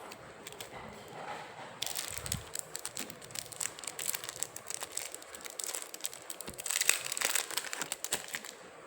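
Coin packaging crinkling and crackling as it is handled, a dense run of small crackles starting about two seconds in and loudest near the end.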